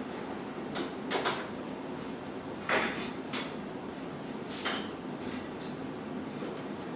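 Metal garage door hardware being handled during a roller replacement: about five separate knocks and clanks with lighter ticks between them, the loudest about three seconds in.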